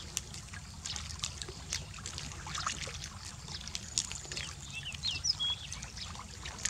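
Water dripping and trickling into a river from hands cleaning a skinned rodent carcass over it, with many small wet clicks and splashes.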